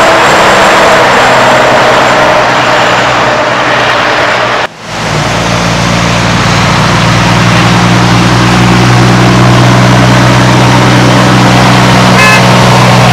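Heavy truck engine running steadily and loud, with a brief drop-out about five seconds in where the audio cuts to another take and the engine tone comes back stronger.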